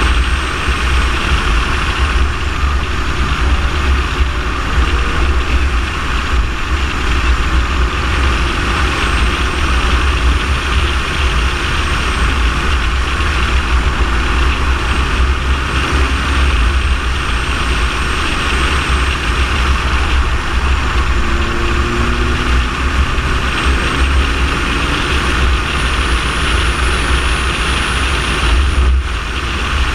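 A car driving at a steady pace, heard from an outside-mounted microphone: steady low wind buffeting on the microphone over continuous road and tyre noise, with a brief dip near the end.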